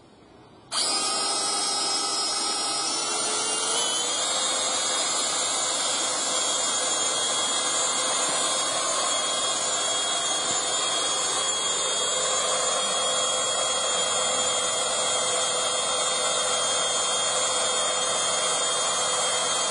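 Makita 36 V cordless drill driving a Jet Winch 40A capstan winch, hoisting a 220 kg log under load. The motor's whine starts suddenly about a second in, climbs in pitch over the next few seconds, then runs steadily until it stops.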